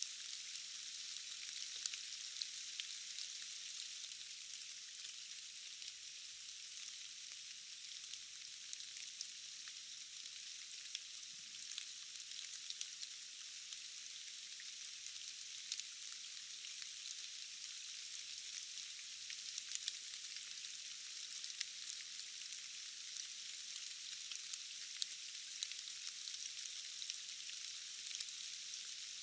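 Steady rain falling: an even hiss full of many small, scattered drop ticks.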